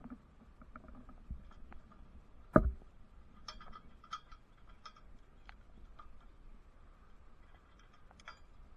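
Metal clinking from climbing hardware on a steel radio tower: scattered light clicks, one louder knock about two and a half seconds in, and a quick run of small clinks just after it.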